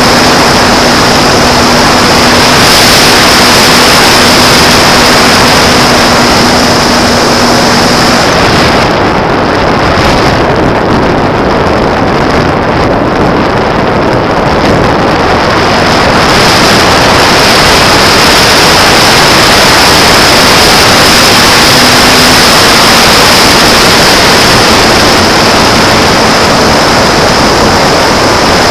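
Onboard audio of a Sky Surfer electric RC plane in flight: loud wind rushing over the microphone with the electric motor and propeller giving a steady high whine. About nine seconds in the whine and the hiss fade for several seconds, then come back around sixteen seconds in.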